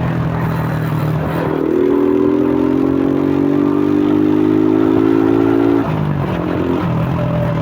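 2001 Suzuki Fiero motorcycle's single-cylinder four-stroke engine breathing through a K&N pod air filter, running under way. About a second and a half in the revs rise and keep climbing slowly for about four seconds, then drop back abruptly near the end.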